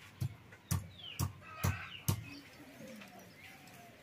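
Pestle pounding ginger on a wooden block: five dull thuds about two a second, stopping about halfway through. Birds chirp faintly in the background.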